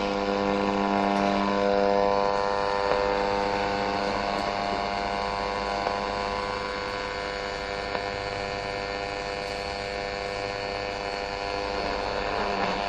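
Medium-wave AM radio receiver tuned between stations, giving a steady buzzing hum over static hiss. The hum is strongest for the first few seconds, and there are a few faint clicks.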